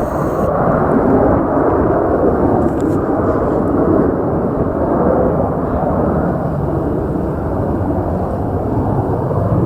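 Airliner landing: a loud, steady rushing rumble of engine and airflow noise, with little above the low and middle range.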